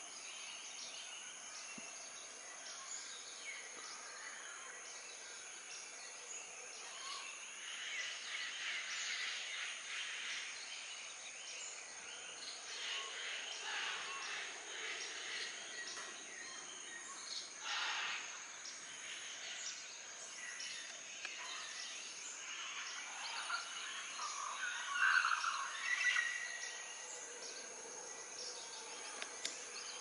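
Tropical rainforest dawn chorus: many birds calling and chirping at once over a steady high-pitched insect drone, with a few louder bird calls near the end.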